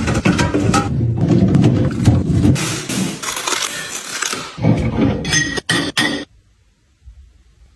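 Containers and packaging being handled and set down while a fridge is restocked: a dense run of clinks, knocks and rustles that stops abruptly about six seconds in.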